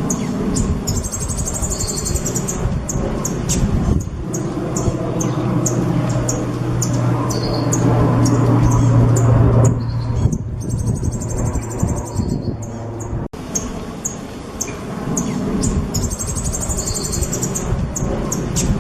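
Songbird singing a fast run of sharp, high chips and trills in a song-training recording, with one phrase coming back about 15 s later. A low, steady hum sits under the song for several seconds in the middle.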